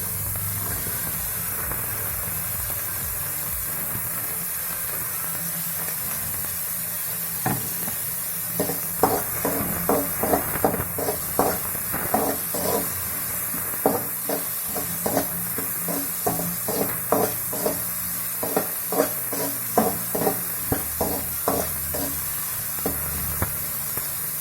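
Chopped onion sizzling in oil in a pan, a steady hiss throughout. From about seven seconds in, a spatula scrapes and knocks against the pan in quick, irregular strokes as the onion is stirred.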